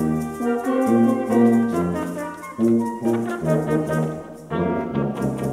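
Instrumental ensemble music playing, several pitched parts over a bass line that moves from note to note every half second or so.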